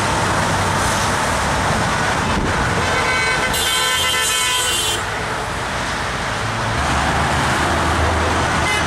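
Steady heavy highway traffic passing below, with a vehicle horn giving one long honk of about a second and a half near the middle, a driver honking in support. A lower engine rumble builds near the end.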